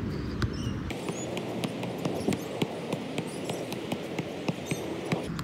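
Soccer ball being juggled: a run of soft thuds as it is kept up off the foot and knee, roughly two touches a second, over steady outdoor wind noise.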